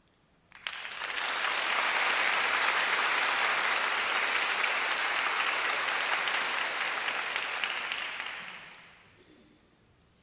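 Concert hall audience applauding. The applause starts suddenly about half a second in, holds steady, and dies away about a second before the end.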